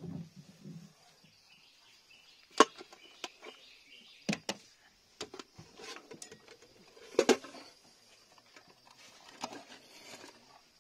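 Scattered sharp knocks and clunks of gear and a plastic fish crate being handled on a boat, the loudest about seven seconds in, over a faint steady high-pitched whine.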